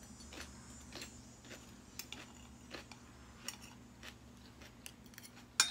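Faint scattered clicks of chewing, then a sharp clink of a metal fork against a ceramic plate near the end.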